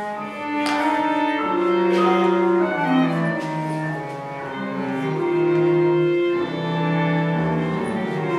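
Chamber ensemble of piano, bass clarinet, violin, cello and glockenspiel playing contemporary classical music: bowed strings in long held notes over piano, with a few sharp struck notes in the first few seconds.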